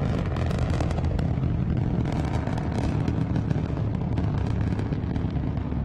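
Antares 230+ rocket's first stage, two RD-181 kerosene engines at full thrust during ascent: a steady low rumble thick with crackle.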